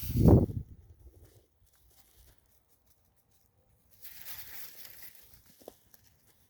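A cat playing, making rustling and crinkling noises: a heavy low thump with rustling right at the start, a quiet stretch, then about a second and a half of rustling before a brief short blip near the end.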